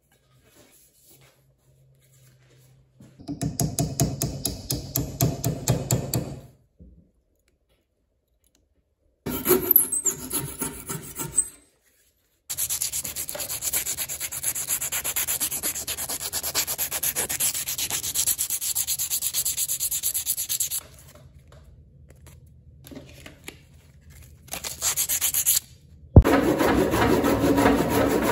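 Wood being hand-sanded with sandpaper in repeated scratchy spells, the longest lasting about eight seconds. Near the end a handsaw starts cutting through wood, with loud, even back-and-forth strokes.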